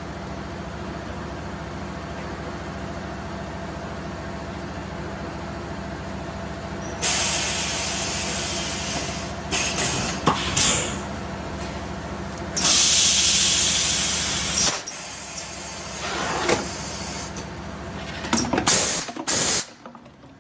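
A four-cavity semi-automatic PET bottle blow-moulding machine running through a cycle. A steady low hum drops out about fifteen seconds in. Two long, loud blasts of compressed-air hiss come about seven and about twelve seconds in while the mould is closed on the bottles, and shorter air hisses and clunks of the pneumatic mould come near the end.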